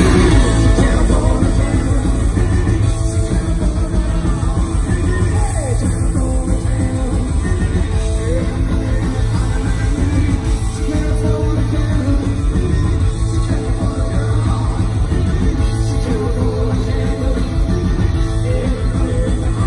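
Punk rock band playing live at full volume: electric guitars, bass and drums, with the singer's voice at times.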